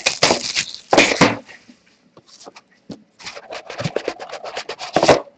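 Plastic shrink-wrap crinkling and tearing as it is pulled off a cardboard trading-card box by hand. It starts with loud crackles, goes quieter for a moment, then comes a rapid run of crinkling that ends in one loud rustle.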